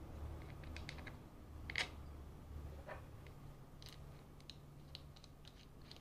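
Light clicks and taps of a small plastic propeller being handled and fitted onto a threaded M6 steel prop shaft, with one sharper tap about two seconds in and a quick run of small clicks near the end. A faint steady low hum lies under it.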